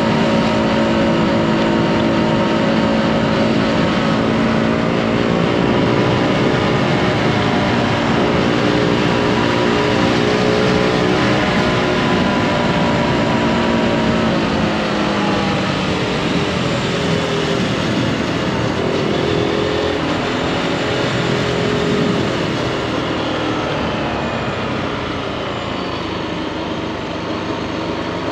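Zontes G155 motorcycle's single-cylinder engine running under way at steady revs, then the revs fall about halfway through and climb again a few seconds later; somewhat quieter near the end.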